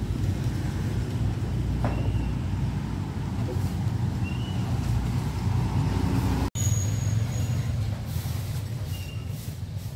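Steady low rumble of road traffic, with a momentary dropout about six and a half seconds in.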